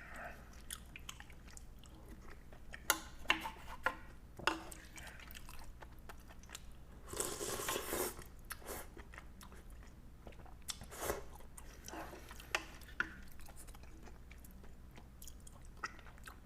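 Close-up eating sounds: a person chewing and crunching a meal of ramen with kimchi and pickled radish, with scattered crisp crunches and a louder noisy stretch of about a second around seven seconds in.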